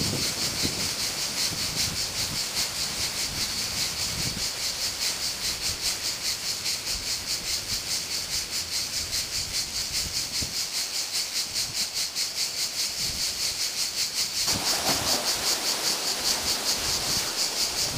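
Chorus of cicadas buzzing in a steady, fast pulsing rhythm.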